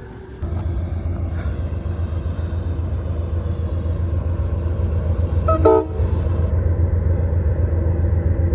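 Train passing with a steady low rumble, and a short horn toot about five and a half seconds in.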